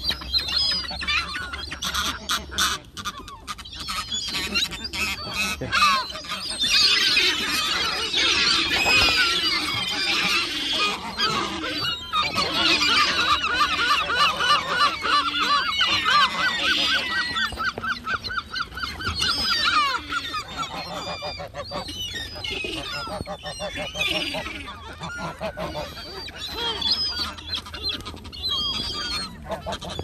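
A flock of gulls calling, many harsh overlapping calls at once, with a long, fast run of repeated notes partway through.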